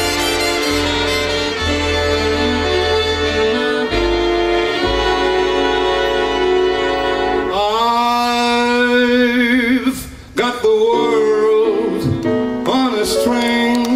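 Live big band with brass and saxophones, holding sustained chords over a bass line. Past the middle a long note with a wavering pitch takes over, followed by short accented chords near the end.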